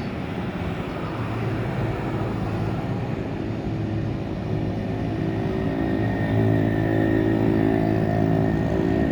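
An engine running with a steady hum that grows stronger from about a second and a half in, over a continuous rushing noise.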